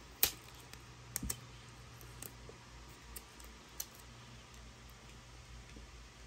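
Sharp plastic clicks and crackles from handling an iPod Touch's clear plastic box and its peel-off film: a handful of separate ticks, the loudest just after the start and a quick pair about a second in.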